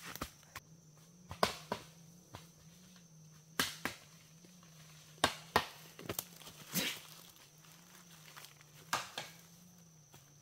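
A series of sharp, irregular chopping or knocking strikes, about a dozen in ten seconds with uneven gaps, over a faint wavering hum.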